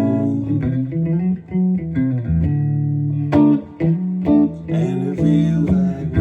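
Guitar playing an instrumental passage: single plucked notes and chords over sustained low bass notes.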